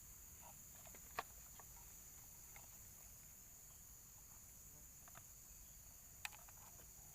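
Near silence with a few faint, sharp clicks: one about a second in, another about six seconds in, and some fainter ticks between.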